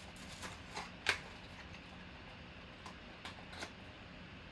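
Soft clicks and rustles of a Panini Absolute football card box and its packs being handled and opened by hand, with one sharper click about a second in.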